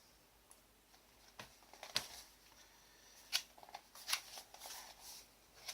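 Light taps and rustles from a boxed knife's packaging being handled, a handful of short scattered clicks.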